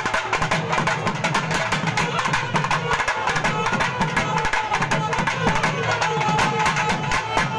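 Traditional Tamil festival drumming: several two-headed barrel drums beaten with sticks and hands in a dense, fast, steady rhythm, with a held melodic tone above the drums.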